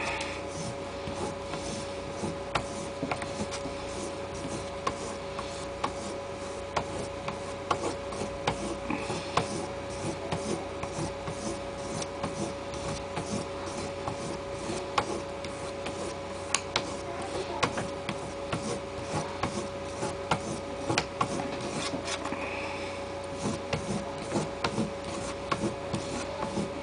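Knife blade being stropped on a leather strop charged with stainless polishing paste: repeated short strokes of steel across leather, about two a second, each with a light click, as the edge is given its final polish after diamond honing.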